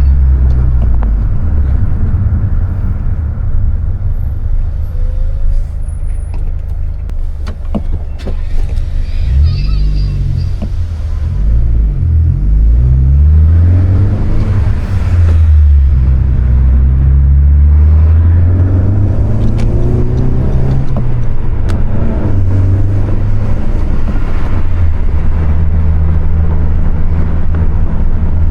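2020 Honda Civic Si's 1.5-litre turbocharged four-cylinder engine running as the car is driven through traffic with its manual gearbox. The engine note holds steady for several seconds, then rises and falls several times through the middle as it is revved and shifted, and settles to a steady drone near the end.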